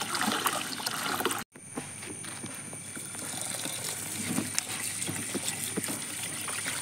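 Tap water running and trickling into a steel pot of rice as a hand swishes the grains to wash them. The sound cuts out for a moment about a second and a half in, then the steady running water carries on.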